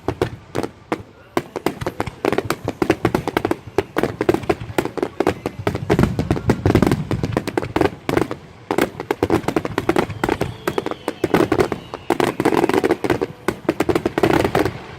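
Fireworks finale: a dense barrage of crackling pops and bangs, many per second, overlapping without a break.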